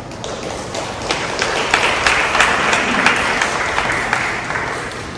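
Audience applauding, a dense patter of many hands clapping that swells over the first couple of seconds and then dies away near the end.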